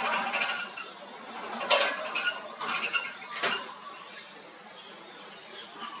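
A caged red-whiskered bulbul flutters and hops between perches in its bamboo cage: rustling wing flaps and landings, with two sharper bursts about two and three and a half seconds in.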